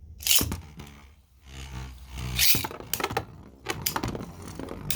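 Beyblade spinning tops in a stadium: a rasping rip like a ripcord launch, then the tops scraping and clashing, with several sharp clicks of hits over a low steady whir.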